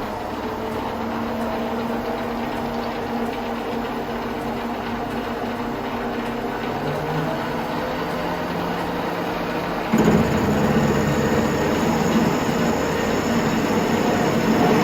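Bernardo Profi 550 WQV mini metal lathe running, turning steel, with a steady motor and gear whine. About ten seconds in the sound jumps louder and rougher.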